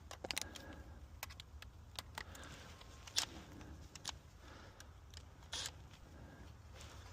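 Scattered sharp metal clicks and clinks of a hand tool with an extension fitted, working on the mounting of a furnace control board, with a short scrape about five and a half seconds in, over a steady low hum.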